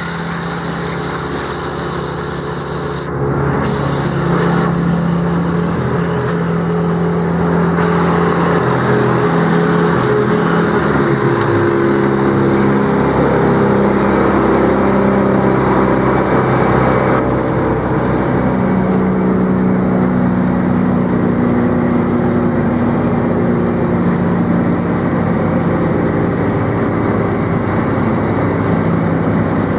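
Vermeer BC1500 wood chipper running steadily at high loudness. A thin high whine falls in pitch about ten seconds in, then holds steady.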